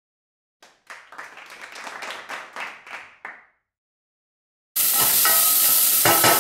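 About ten quick scrapes of a swivel vegetable peeler stripping a carrot, roughly three a second. They stop, and after a short gap a pan of onions and garlic starts sizzling steadily as it browns near the end.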